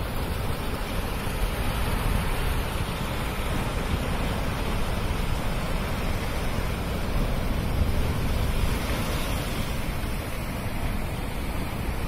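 Heavy sea surf breaking and churning in whitewater against a rocky shore: a continuous, even rush, with wind buffeting the microphone.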